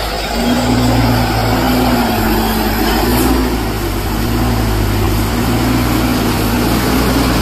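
Truck engine running steadily, its pitch wavering slightly up and down.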